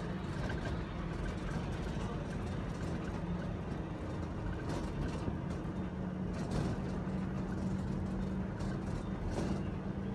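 Steady engine hum and road noise heard from inside a moving vehicle, with a low steady drone and a few brief hisses.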